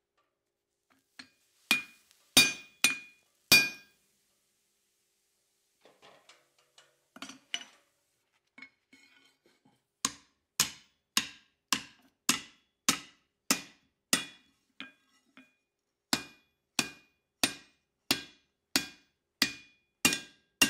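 Hand hammer striking red-hot steel on an anvil, each blow with a short metallic ring: four blows in the first few seconds, a few light taps, then a steady run of blows about every 0.6 s through the second half. The steel is an old hammer head being forged into a hot cut.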